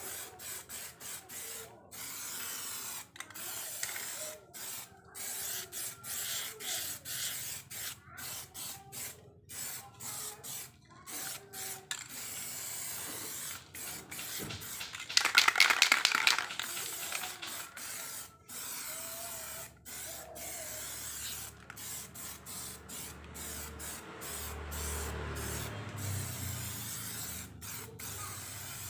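Aerosol spray can spraying paint onto a motorcycle wheel rim in many short bursts with brief gaps between them. About halfway through there is a louder burst of rapid clicking.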